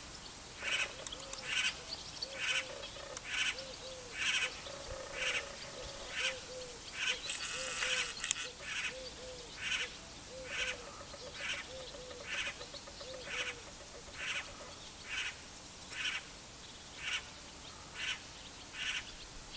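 Great spotted cuckoo calling: a short, rasping note repeated about once a second, some twenty times, with a longer chattering call about eight seconds in.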